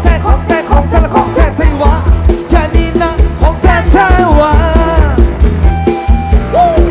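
Live mor lam sing band music: a steady, fast kick-drum beat under a melody that bends and slides in pitch.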